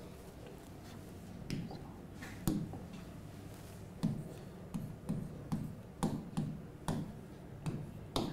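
Light taps and clicks of a pen or stylus on a touchscreen whiteboard while a word is handwritten. A couple of single clicks come first, then a run of taps about two or three a second from about four seconds in.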